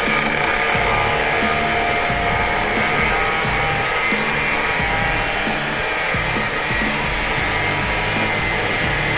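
Fein CG 13-125 PDE 5-inch angle grinder running at full speed, a steady loud motor whine and rush, over background music with a steady bass line.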